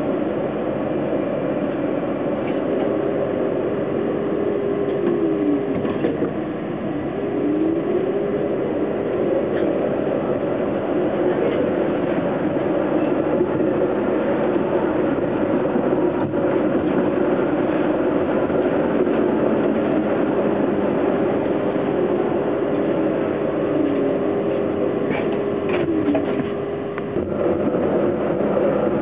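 Toronto streetcar running along its street track, heard from inside at the front: a steady rumble of wheels and running gear with a held whine that falls and breaks off briefly about six seconds in and again near the end.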